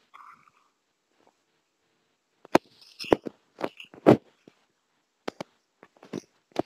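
Irregular sharp clicks and knocks, about ten of them starting a couple of seconds in, the loudest about four seconds in.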